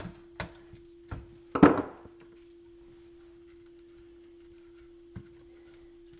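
A few sharp clicks and knocks of tools and parts being handled on a stereo receiver's metal chassis during disassembly, the loudest about one and a half seconds in, then a faint steady hum with one more knock near the end.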